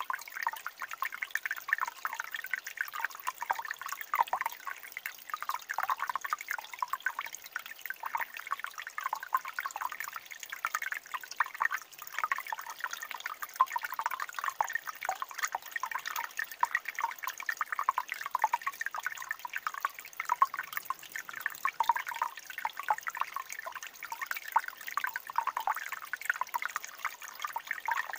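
Shallow stream water trickling over rocks, a steady run of small bubbling splashes.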